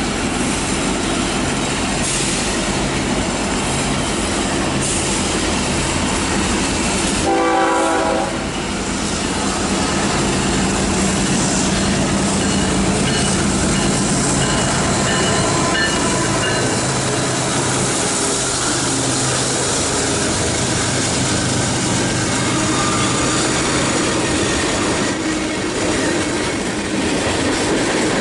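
A train running past with continuous rumble and clickety-clack of wheels over rail joints. About seven seconds in, a locomotive horn sounds briefly.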